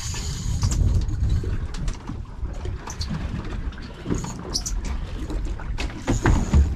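Wind buffeting the microphone over water sloshing against a boat hull, with scattered clicks and ticks from fishing reels being worked, and a couple of heavier knocks near the end.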